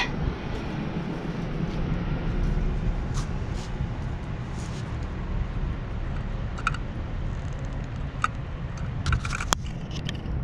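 Steady low rumble, with a few light clicks and clinks scattered through it and a sharper click about nine and a half seconds in.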